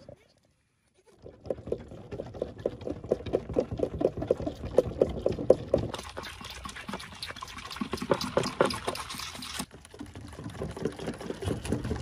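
Goat kids suckling milk from the nipples of a bottle feeder bar, a fast, continuous run of sucking and slurping. It starts after about a second of silence and dips briefly near ten seconds.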